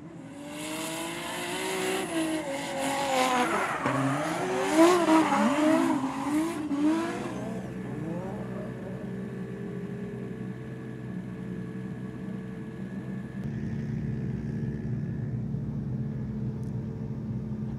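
Drift car sliding through a bend, its engine revving up and down hard against the tyres' squeal, for about seven seconds. After that an engine runs steadily at a lower level.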